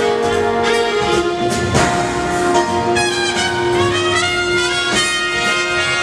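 Big band playing jazz: brass and saxophone sections holding chords over a drum kit's steady beat, with a high horn line bending in pitch about three seconds in.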